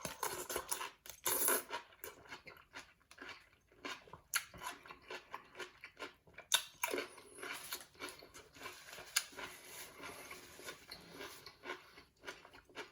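A person chewing and biting into a juicy sub sandwich close to the microphone, with irregular clicks and smacks from the mouth.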